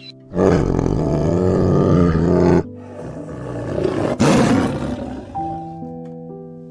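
A tiger roaring twice: a long roar, then a second that breaks out loudest about four seconds in, over soft piano music that comes back clearly near the end.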